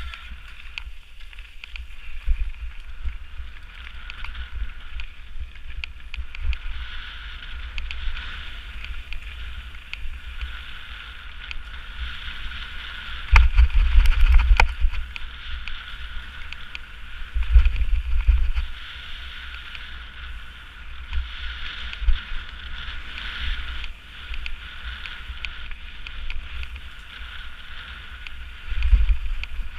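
Mountain bike riding a gravel forest trail: steady tyre noise on the gravel and the bike rattling over bumps, with wind rumbling on the microphone. Three louder rumbling stretches, the longest a little under halfway, as it goes over rougher, stony ground.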